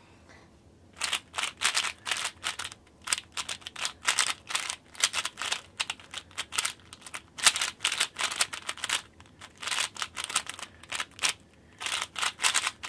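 A Meiying 3x3 speed cube, lubed with DNM-37, turned quickly right at the microphone: clusters of fast clicking, scratchy layer turns with short pauses between them.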